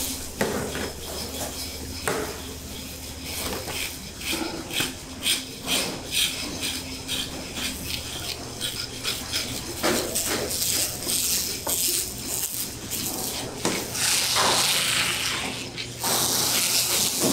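Frozen salmon, crushed ice and scales clattering and scraping on a stainless steel work table, a run of short sharp knocks and scrapes over a steady machinery hum. A louder hiss comes in near the end.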